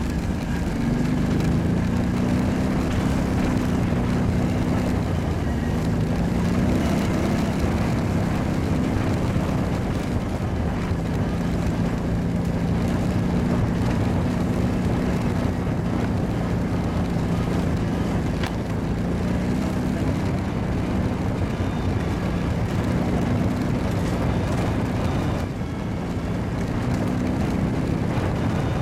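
Kawasaki ATV engine running while the quad is ridden, its pitch rising and falling a little with the throttle, over a steady rushing noise.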